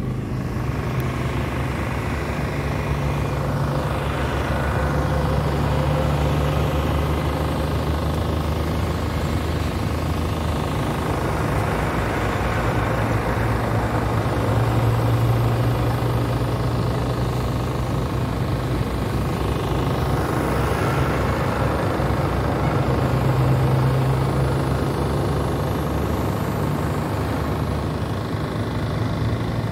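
Diesel engines of heavy-haul prime movers towing long low-loader trailers, running at a low pitch and swelling louder three times as trucks go past: a few seconds in, near the middle, and about three-quarters through.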